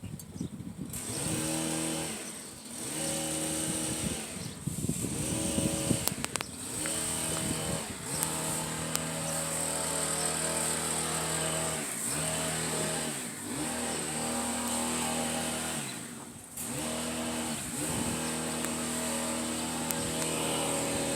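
Hummingbird wings humming while it hovers at the blossoms: a low, buzzing hum that keeps breaking off and swooping in pitch as the bird shifts and darts between flowers.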